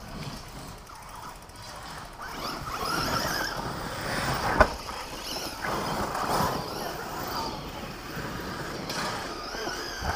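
Radio-controlled cars' motors whining on a dirt track, the pitch rising and falling as they speed up and slow down, with one sharp knock about halfway through.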